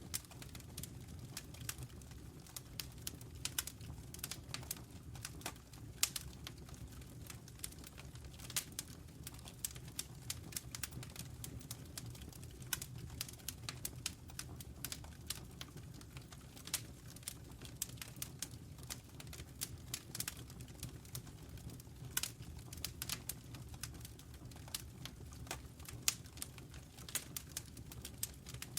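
Wood fire burning in a fireplace: a steady low rumble of the flames with frequent irregular crackles and sharp pops from the burning logs.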